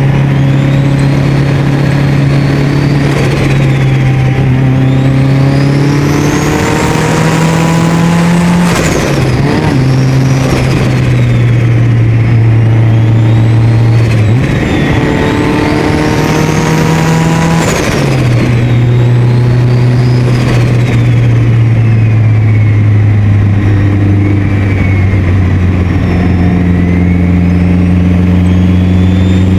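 Mitsubishi Lancer Evolution VIII's turbocharged 4G63 engine pulling under load, with a high turbo whistle that rises and falls with the revs. Around 9 and 18 seconds the revs drop sharply with a short burst as the throttle comes off; with the blow-off valve deleted, this is where the boost surges back through the turbo as flutter.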